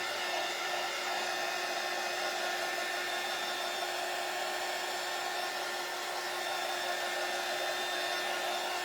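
Handheld hot-air blower running steadily with an even whirring hum, drying a fresh coat of Mod Podge.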